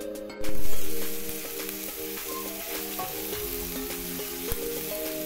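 Chopped onions sizzling as they fry in a nonstick pan, pushed around with a silicone spatula. The sizzle comes in suddenly and loud about half a second in, then settles to a steady hiss with a few light spatula clicks. Background music plays steady notes underneath.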